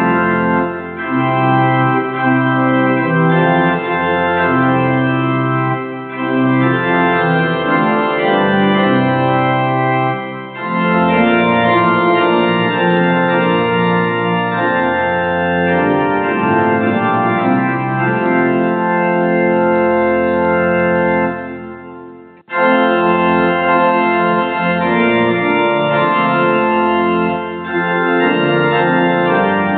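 Church organ playing the postlude at the close of the service, in held chords, with a short break between phrases about three-quarters of the way through.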